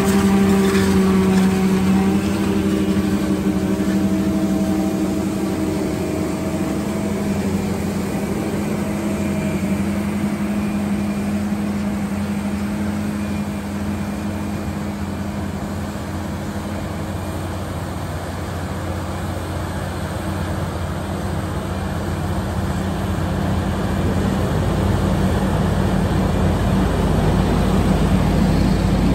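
John Deere self-propelled forage harvester with a Kemper rotary corn head chopping standing corn: a steady machine hum with a higher whine at first, the whine fading within the first several seconds as the machine pulls away. A deeper low rumble builds near the end.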